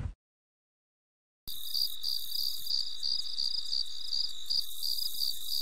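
A loud noisy burst cuts off right at the start, then after about a second of dead silence crickets start chirping, a steady run of evenly spaced high chirps.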